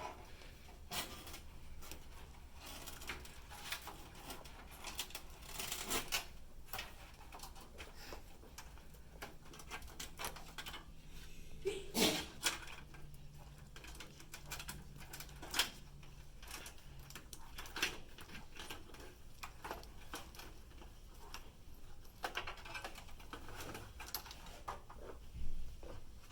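Irregular clicks, taps and rustling of power-supply cables being handled and routed through the back of a PC case, with a few louder knocks now and then.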